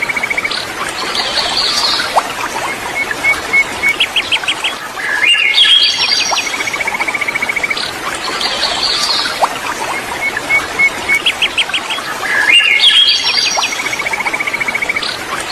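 Songbirds chirping and trilling over a steady rush of flowing river water. The same run of calls, a fast trill and a falling series of notes, comes round about every seven seconds.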